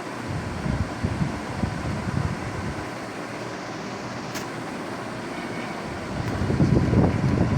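Super Asia Golden Series 56-inch ceiling fan running, its airflow buffeting the microphone with a gusty rumble that grows louder about six and a half seconds in, over a faint steady hum.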